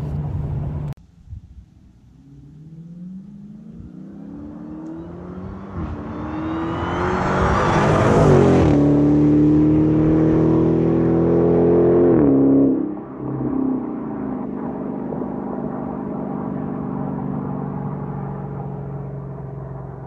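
The supercharged 6.2-litre Hemi V8 of a stock 2016 Dodge Challenger Hellcat at full throttle on a standing half-mile run. The engine note climbs through the gears as it comes closer, is loudest for a few seconds around eight seconds in, drops in pitch, and fades away as the car pulls off into the distance.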